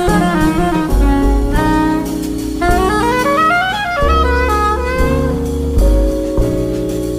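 Jazz quintet playing live: a saxophone plays fast melodic runs that climb and fall over piano, bass and drum kit.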